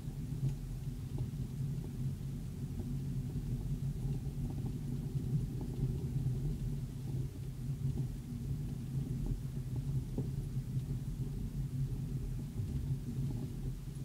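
Vehicle engine and drivetrain running steadily while driving through snow, heard from inside the cab as a low, even drone.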